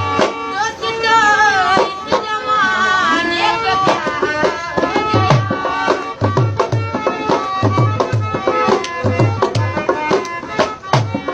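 Traditional folk-style music with quick hand-drum strokes throughout. A melody of wavering, sliding notes leads in the first few seconds, and a deep bass beat repeats from about five seconds in.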